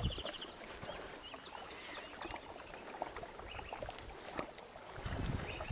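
Quiet water lapping against a small boat's hull, with scattered small clicks and taps and a few low thumps about five seconds in.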